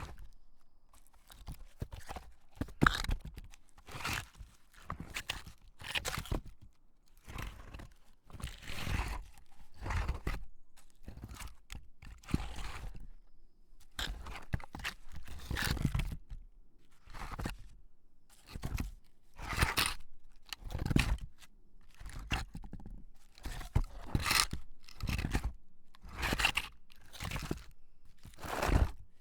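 A wooden log scraping and knocking against a boulder: a long series of short, irregular scrapes, each with a low thud, about one a second.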